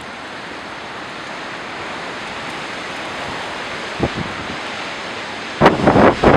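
Strong wind rushing steadily. Near the end, gusts buffet the microphone in heavy low rumbling blasts.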